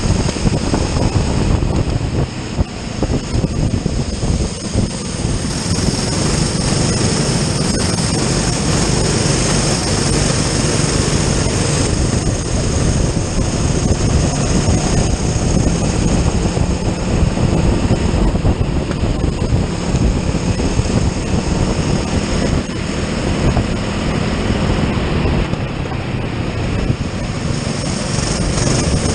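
A kart's engine running hard at racing speed, heard from the kart itself, its revs rising and falling through the corners, under heavy wind rush on the onboard microphone.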